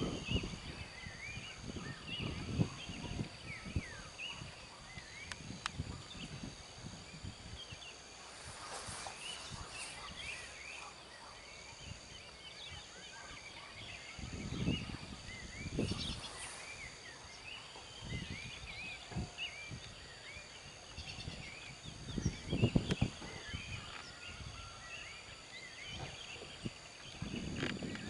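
Open-air ambience of small birds chirping over a steady high insect drone, with a few low muffled bumps about halfway through and again near the end.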